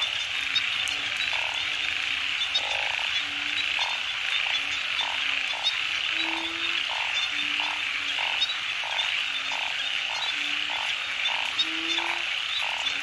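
Rain-night breeding chorus of frogs, narrow-mouthed frogs (oung) among them, many calling at once. Short low croaks and regular mid-pitched pulses, about two a second, sit over a dense steady high-pitched trilling.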